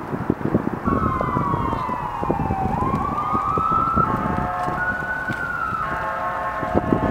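A siren sweeps down in pitch and back up, then holds several steady tones together, over low buffeting noise.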